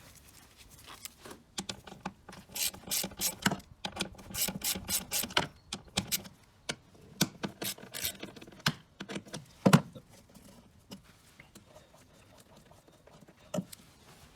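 Ratchet wrench clicking in quick runs while undoing 8mm bolts that hold plastic engine-bay covers, mixed with small metal and plastic clatter. There is one sharper knock about ten seconds in.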